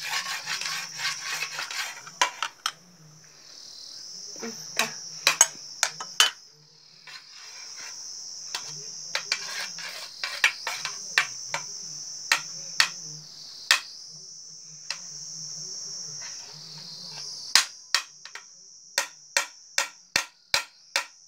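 A metal spoon clinking against a ceramic plate, in scattered taps and then a quick run of about three taps a second near the end. Behind it, a steady high-pitched drone of insects.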